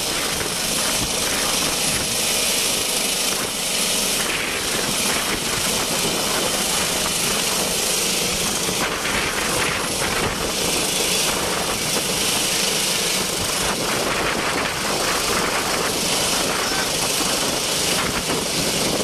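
Airbus H145 helicopter's rotors and turbines running loud and steady as it lifts off and climbs overhead.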